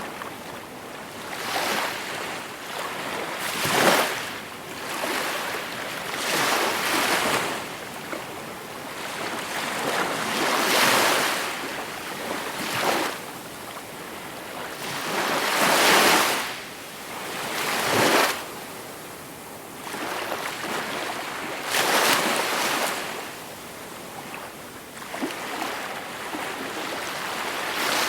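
Gentle ocean waves breaking and washing on the shore, one after another every few seconds, each surge swelling and fading away.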